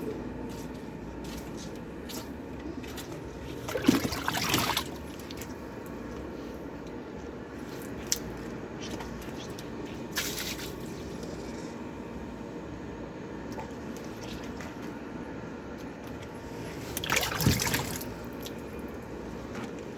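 Water sloshing and splashing in a small washing machine over a steady background noise, with louder splashes about four seconds in, briefly in the middle and again near the end.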